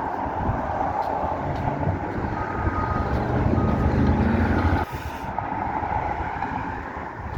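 Diesel engine of heavy demolition equipment working under load, getting louder about two seconds in and dropping back abruptly near five seconds, with a reversing alarm beeping a few times in the middle.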